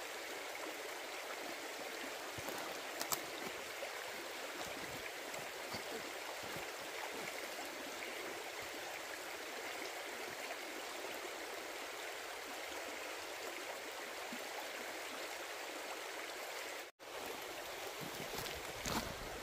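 Shallow rocky creek burbling over stones, a steady rush of water.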